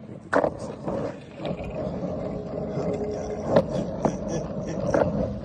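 Skateboard rolling over wet pavement, its wheels making a steady rumble, with several sharp clacks of the board against the ground. The loudest clack comes a little past halfway.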